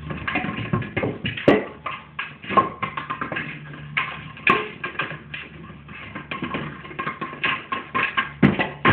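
Plastic running egg toy knocking and clattering about as it is pushed and rolled around, in many irregular sharp knocks over a faint low hum.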